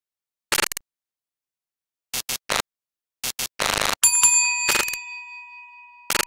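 Logo sting sound effect: several short crackles of glitchy static with silence between them, then about four seconds in a bright bell-like ding that rings on and slowly fades while more static crackles pass over it.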